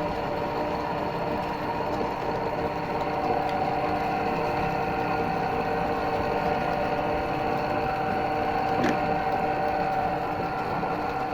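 Electric meat grinder motor running with a steady hum, with a single sharp click about nine seconds in.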